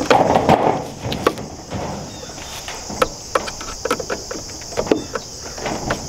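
Plastic trough chicken feeder being assembled: irregular clicks and knocks of plastic parts being handled and screwed together, with a rustling burst at the start.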